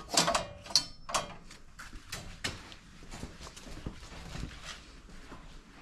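Irregular light clicks and knocks of wood and tools being handled while a board is checked for square, with a short chicken vocalisation in the first second or so.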